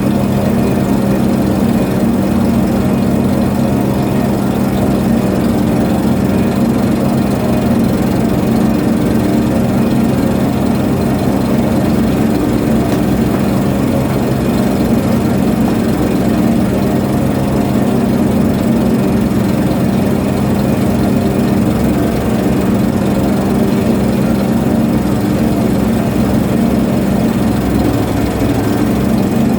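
A ship's diesel engine running steadily, a constant low drone with a deep hum that does not change.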